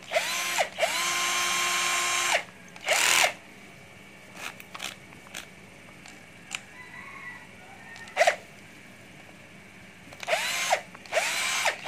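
Cordless drill/driver motor run in several trigger pulls. Each time the whine rises quickly to a steady pitch and winds down on release, with a longer run in the first seconds and short bursts near the end. Clicks and a clack come in the quieter middle, as the tool is bench-tested to check that the chuck spins without sticking.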